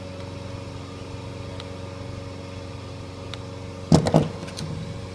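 Steady mechanical hum, with a quick cluster of sharp clicks and clatter about four seconds in, from small hand tools handled while stripping a cable's ends.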